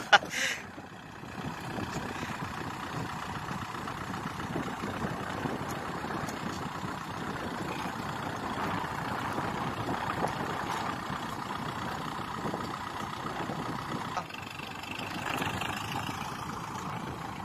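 Kubota MU4501 4WD tractor's four-cylinder diesel engine running steadily as the tractor drives up out of the mud onto the track. A short loud burst of sound comes at the very start.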